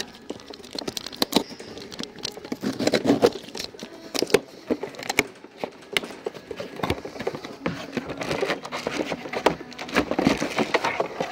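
Cardboard box of a pump sprayer being opened and rummaged through by hand: flaps and packaging rustling and crinkling, with irregular clicks and knocks from the parts inside.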